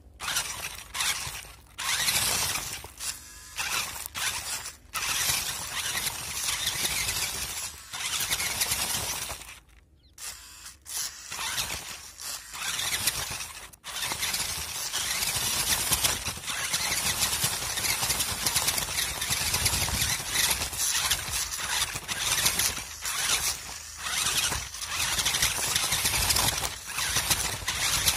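Onboard sound of an off-road RC truck driving over dirt and rocks: its motor and gearbox whine high as the throttle surges on and off, with tyres crunching over the ground. The sound nearly drops out for a moment about a third of the way in.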